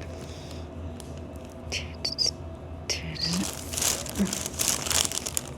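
Rustling and crinkling of clothing and the paper cover of a treatment table as someone settles onto it, in irregular bursts that start about two seconds in, over a steady low hum.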